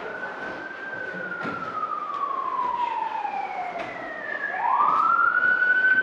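Emergency vehicle siren on a slow wail: one long falling sweep, then a quick rise back up about four and a half seconds in, where it holds high and gets louder. A few soft knocks from grappling on the mats sound underneath.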